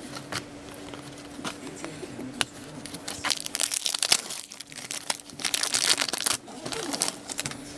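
A foil trading-card pack wrapper crinkling loudly as it is handled and torn open, after a few light clicks of cards being flipped through.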